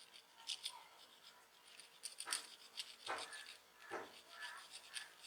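Faint, scattered clicks and taps of small smartphone parts being handled and pressed into place as the shielding cover is fitted back over the phone's internals. A few sharper clicks come about two, three and four seconds in.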